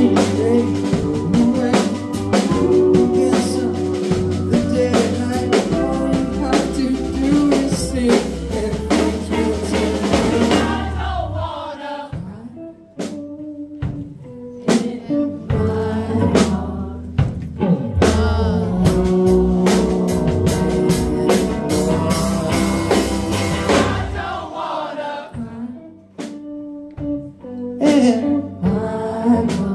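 Indie rock band playing live: electric guitars and drum kit with singing. Twice the band thins out to scattered drum hits before coming back in full.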